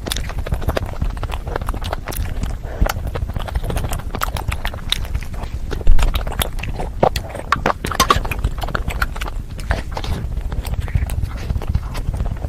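Close-miked eating sounds: chewing with irregular wet smacks and mouth clicks. One loud bump about halfway through.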